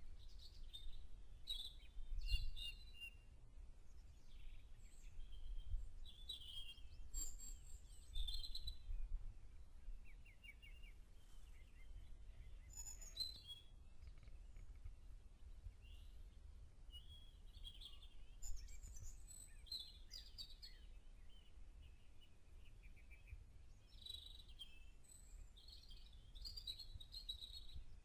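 Wild songbirds singing outdoors in a spring morning chorus: short, varied high phrases come one after another with brief gaps. A low rumble runs underneath.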